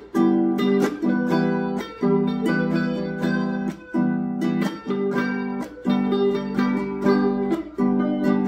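Ukulele and electric guitar playing together: steadily strummed chords in an even rhythm, with no singing.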